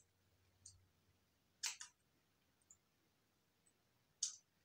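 Near silence with a few faint, short clicks of eating at the table with a fork, one pair coming close together about halfway through.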